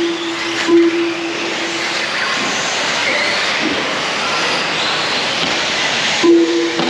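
Electric off-road RC cars racing on a dirt track: a steady hiss of motor whine and tyre noise. A steady horn-like tone sounds in short stretches until about two seconds in and returns near the end.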